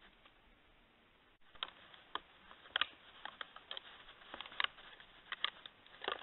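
Deer hooves crunching in snow: irregular crisp steps of varying loudness, starting about a second and a half in.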